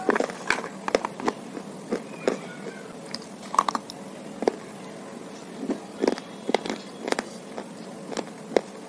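Edible clay slate bars being snapped and bitten, giving sharp, dry crunches at irregular intervals, several in quick succession at times.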